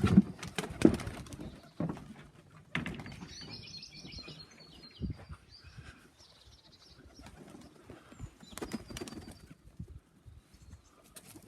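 Young pigeons flapping their wings as they take off, with sharp wing claps, mostly in the first few seconds and again near the end. A short, high chirping trill from a bird comes about three seconds in.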